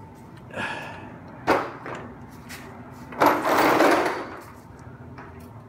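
Handling noises of a car's front subframe balanced on a jack as it is lifted toward the car: a sharp metal knock about one and a half seconds in, and a longer rough scrape lasting about a second just after three seconds.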